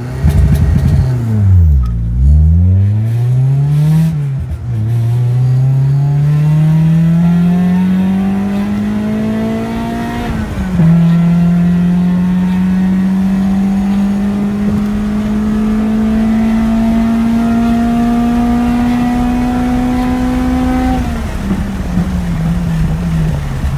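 Honda Civic's swapped-in H22 2.2-litre four-cylinder with aftermarket header, heard from inside the cabin under hard acceleration. The engine note dips and rises twice in the first few seconds, then climbs steadily. It drops sharply at an upshift about ten seconds in, climbs again through the next gear, and falls away near the end.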